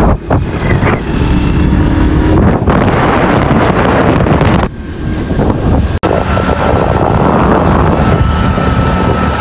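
Motorcycle engine running on the move, under a heavy wind rumble on the microphone; the sound cuts out briefly a few times.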